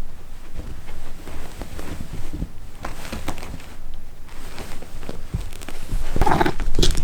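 Cats playing: light thumps, taps and scuffles of paws on the floor, with a brief louder sound near the end.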